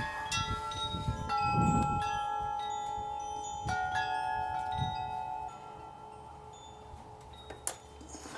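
Wind chimes ringing: several metal tones struck at different moments, each hanging on and slowly fading. Low rumbles sound in the first two seconds, and a couple of sharp clicks come near the end.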